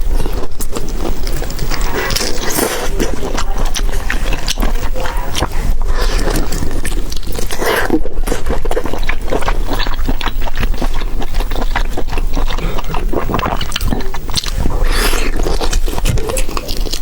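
Close-miked eating: a person chewing and slurping food with many rapid wet smacks and clicks.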